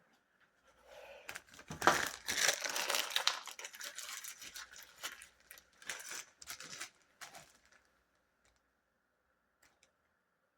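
Irregular rustling, crinkling and scraping of something being handled, with scattered sharp clicks, densest about two to four seconds in and dying away by about seven and a half seconds.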